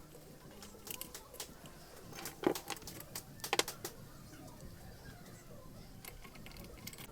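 Metal tools and small engine parts clinking and clicking as they are handled, with scattered light clicks and two louder clinks near the middle.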